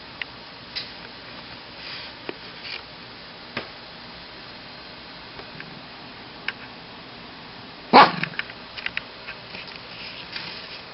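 Shih Tzu giving one short bark about eight seconds in, the loudest sound here. Around it are soft sniffing and a few light clicks.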